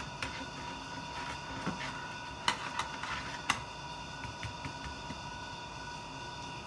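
A few light clicks and taps of a metal spoon against a metal baking pan as soaked cookies are pressed in, the sharpest two about two and a half and three and a half seconds in, over a faint steady tone.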